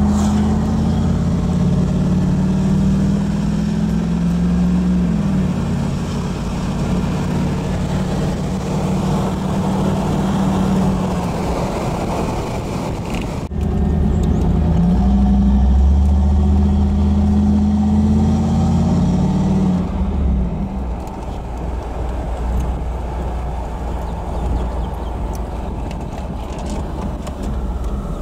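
Chevrolet 5.0-liter TBI V8 with dual exhaust running under way, heard from inside the car: a steady low engine drone with road noise. The engine note climbs and then drops back twice, with an abrupt break about halfway through.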